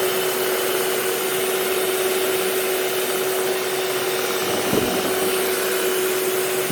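Electric mixer running steadily, its motor whining at one even pitch over a dense whirring hiss as the beaters whip a coffee and hot-water mixture that is thickening to a creamy consistency.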